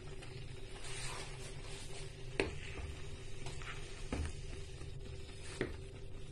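Wooden spoon stirring a thick cornstarch-and-coconut-milk pudding mixture in a pan, with three sharp knocks of the spoon against the pan about a second and a half apart, over a steady low hum.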